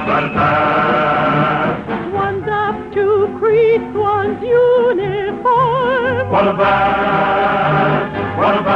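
A choir and orchestra performing a show tune as an old mono radio broadcast. The choir holds a chord, then about two seconds in a single voice sings a short phrase with wide vibrato, and the full choir comes back in about six seconds in.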